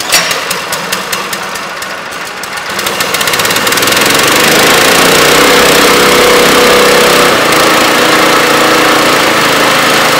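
Small single-cylinder gasoline engine of a mobile milking machine, pull-started with its recoil rope. It catches at once and runs with a fast, rough firing, then speeds up about three seconds in to a steady, louder run as the throttle is opened.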